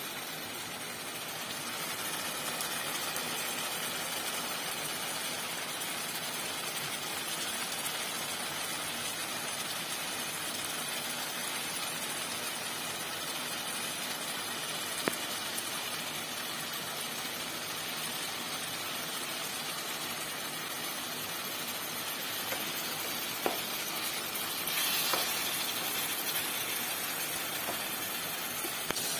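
Chopped tomatoes and onions sizzling and simmering in a pot: a steady hiss with a few faint clicks, a little louder for a moment about 25 seconds in.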